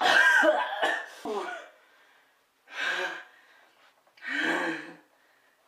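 A person gasping and panting from the burn of ghost chili pepper sauce: a sudden loud, strained gasp with voice in it, then two heavy breaths, about three and four and a half seconds in.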